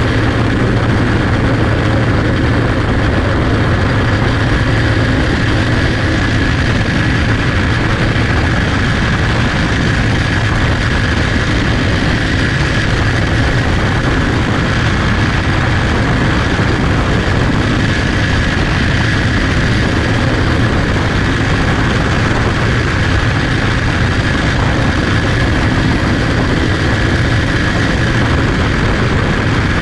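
Onboard sound of a clone champ car at race pace: its small single-cylinder engine runs in a loud, steady drone with hardly any change in pitch.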